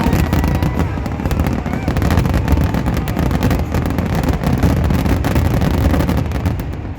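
Fireworks barrage: a dense, rapid run of bangs and crackles that eases off just before the end.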